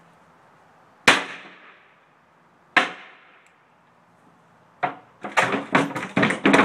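Two loud sharp knocks a couple of seconds apart, then a rapid run of clattering knocks near the end as a panel of the wrecked projection TV is handled and tipped over.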